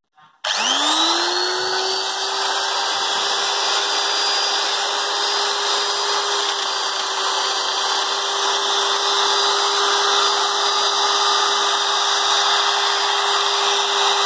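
Electric sheet-metal nibbler's motor switched on about half a second in, spinning up quickly and then running steadily with a constant hum and a high whine.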